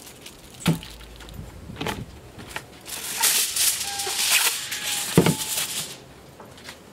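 A sheet of aluminium foil being pulled out and crinkled, a dense crackling that is loudest in the middle of the stretch, with two sharp knocks, one early and one about five seconds in.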